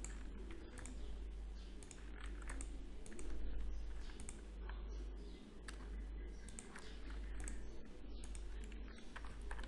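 Computer keyboard keys and mouse clicks, scattered irregular taps, over a steady low hum.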